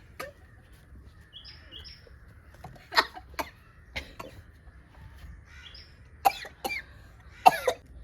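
A person coughing in short, sharp fits: three pairs of coughs spread over the seconds.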